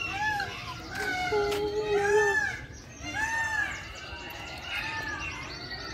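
Indian peafowl (peacocks) calling: a run of arched, rising-then-falling wailing calls about once a second, with smaller birds chirping in the aviaries behind.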